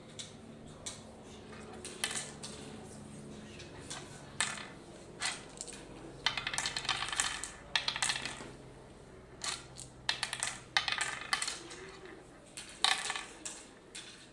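Oware seeds clicking and rattling as they are picked up and dropped one by one into the hollow pits of a carved wooden board: a move being sown, in irregular clusters of sharp clicks.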